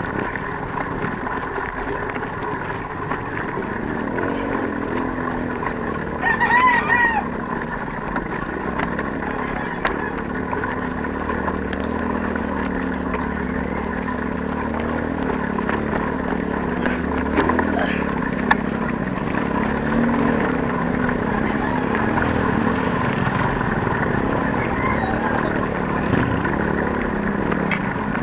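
A rooster crowing once, about six seconds in, over a steady background rumble.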